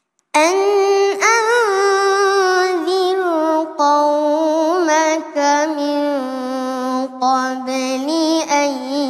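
A boy reciting the Quran in the melodic, drawn-out tajwid style, one high voice holding long notes with wavering, ornamented turns. It comes in a third of a second in after a silence, breaks off briefly a few times for breath, and settles lower in pitch in the second half.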